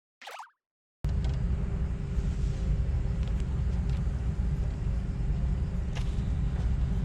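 Steady low outdoor rumble, such as wind on the microphone or distant road traffic, with a faint constant hum and a few light ticks. It begins about a second in, after a silent gap broken by a short swoosh falling in pitch.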